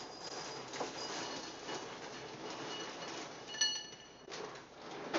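Faint handling sounds, then a single short ringing clink about three and a half seconds in: a spoon against a ceramic cereal bowl.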